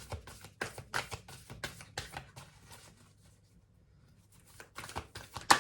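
Oracle cards being shuffled by hand: a quick run of papery flicks and riffles for about three seconds, a lull, then a few more card handling sounds ending in one sharper snap near the end.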